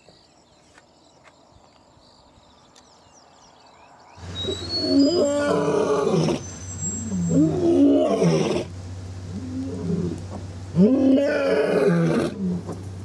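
Male African lion roaring as it walks: a series of deep roars starting about four seconds in, three long loud ones with lower grunts between them.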